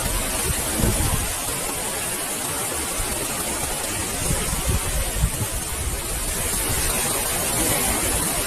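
Ocean waves washing onto a beach: a steady rushing surf noise with irregular low rumbles.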